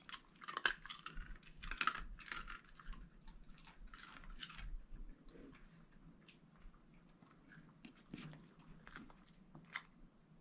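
A dog chewing a piece of shrimp: a quick run of crisp crunches over the first four or five seconds, then fewer, scattered ones.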